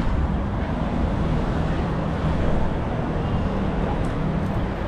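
Busy city street traffic: a steady rumble of vehicle engines and tyres, with a low engine hum underneath.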